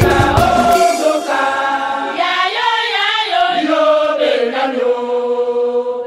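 A group of voices sings a drawn-out supporters' chant a cappella, with long held notes. The drums and backing music drop out about a second in.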